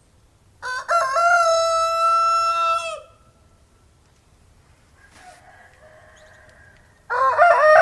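Rooster crowing: a loud, drawn-out crow starts about half a second in and lasts a little over two seconds. A fainter crow follows in the middle, and another loud crow begins near the end.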